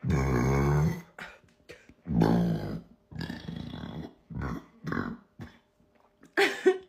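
A woman burping loudly twice, each burp low-pitched and lasting under a second, the second about two seconds after the first, followed by several shorter, quieter sounds.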